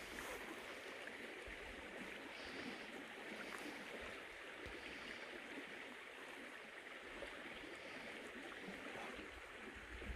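Steady, quiet rush of a flowing stream.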